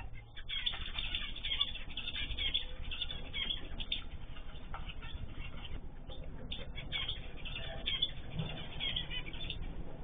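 A mixed group of small cage birds, cockatiels, zebra finches, canaries and goldfinches, chirping all at once in a continuous busy chatter.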